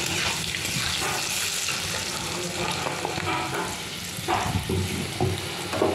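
Potato wedges and turmeric sizzling in hot oil in a kadai, being fried down with the spice, while a metal spatula stirs and scrapes against the pan, with a few sharper scrapes in the last couple of seconds.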